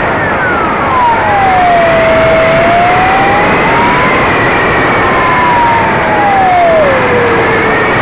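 Radio-controlled model aircraft's motor and propeller, heard loud and close with heavy wind rush from a camera on board. The motor's whine slides down steeply over the first two seconds, climbs again, then falls once more near the end as the model comes down low over the grass.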